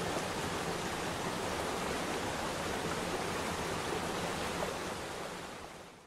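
Steady rush of flowing water, a stream or waterfall, fading out near the end.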